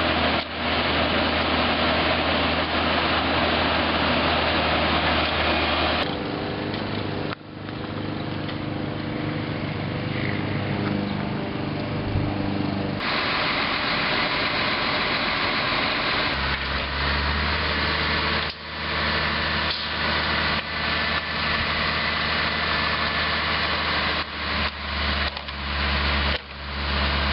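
Engine of heavy work machinery running steadily, with its pitch and load shifting a few times.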